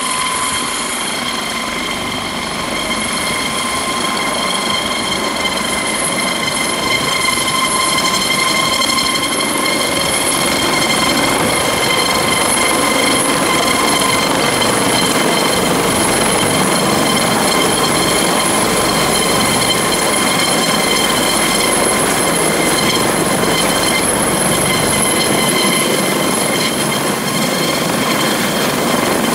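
Navy Dauphin helicopter with a ducted tail rotor, flying in and hovering close by: a steady high turbine whine over the rushing chop of the rotor. It grows louder over the first ten seconds as it comes near, then holds steady.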